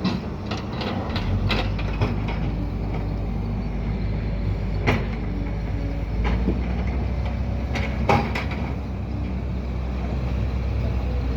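Heavy diesel earthmoving machines running steadily at a worksite, with several sharp knocks from the machines at work. The loudest knocks come about five and eight seconds in.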